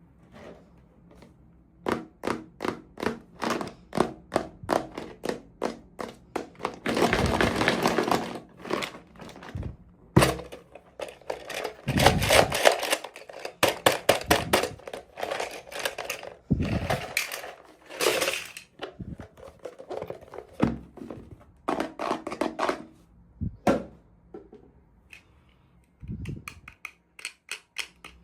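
Toy packaging being handled and opened by hand: a long run of sharp taps and clicks, broken by three longer stretches of rustling.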